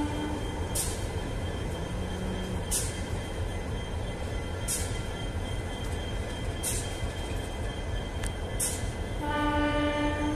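Passenger train rolling slowly with a steady low rumble, a short hiss about every two seconds, and a train horn sounding briefly at the start and again for about a second and a half near the end.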